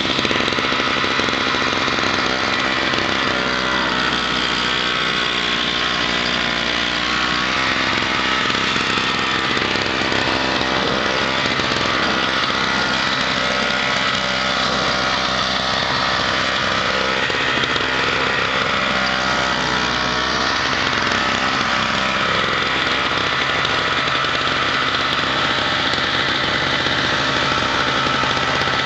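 Small engine of an MTD 4.75 HP snowblower running steadily as the machine is pushed through snow, its pitch dipping and rising slightly a few times.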